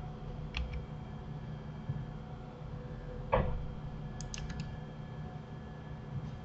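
A few sharp clicks from a computer keyboard and mouse over a low steady hum: one about half a second in, a louder one just past three seconds, and a quick cluster of three or four a second later.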